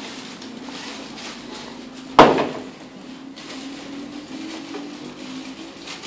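One loud, sharp knock from the pool table about two seconds in, ringing out briefly, over low room noise.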